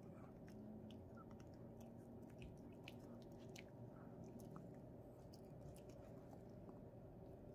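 Pomeranian puppy chewing and licking a small treat: faint, irregular little clicks and crunches.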